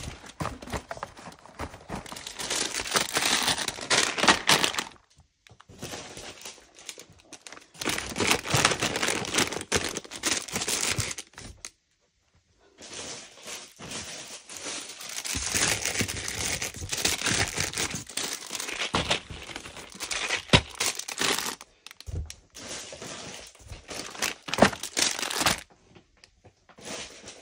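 Plastic-wrapped chocolate packs and sweet bags crinkling and rustling as they are pushed into a cardboard box. The rustling comes in stretches of a few seconds with short pauses, and there are a couple of light knocks near the end.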